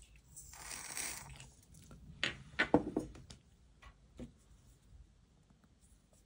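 Small-scale handling noise at a modelling bench: a short rustle about half a second in, then a cluster of light clicks and taps from about two to three seconds, with a couple of fainter ticks after.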